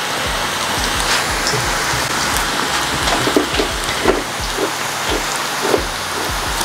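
Chana dal pakoda dough deep-frying in a pan of hot oil: a steady sizzle with scattered pops and crackles as handfuls of dough go into the oil.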